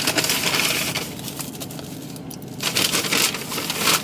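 Plastic zip-top sandwich bag crinkling as it is handled, in two spells of rustling: one lasting about a second, another from about two and a half seconds in.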